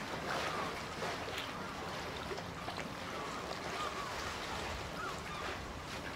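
Sea water lapping and splashing against a stone harbour pier, with wind, as a steady wash of noise. A few faint short calls rise above it now and then.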